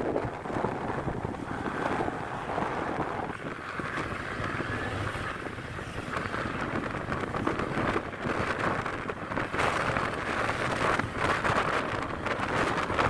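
Wind rushing over the microphone while riding a Honda Click 125i scooter, with the scooter's running and road noise underneath.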